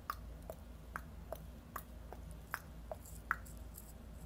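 Mouth clicks made with the tongue and lips, done out of habit: about nine short hollow pops, roughly two a second, each at a slightly different pitch.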